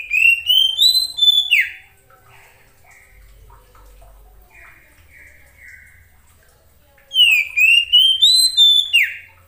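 Oriental magpie-robin singing two loud phrases of rising and falling whistled notes, each ending in a quick downward sweep, about seven seconds apart, with soft buzzy notes in between.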